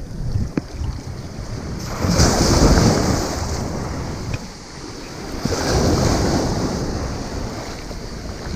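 Surf breaking on the beach, two waves washing in and fading one after the other, with wind buffeting the microphone.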